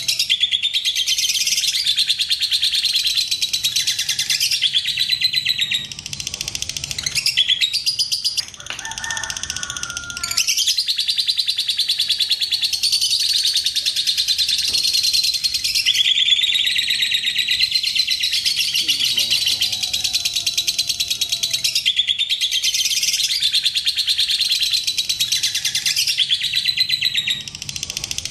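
Fischer's lovebirds singing long, rapid chattering trills ('ngekek panjang'), made of fast ticking high notes run together for many seconds at a time. The chatter breaks off into scattered calls about six seconds in, resumes after about ten seconds, and dips again briefly near the end.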